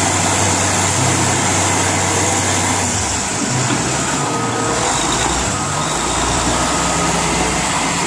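Diesel engines of heavy earthmoving machines, a wheel dozer and a crawler bulldozer, running with a steady low hum under a dense mechanical noise; the engine note shifts lower about three seconds in.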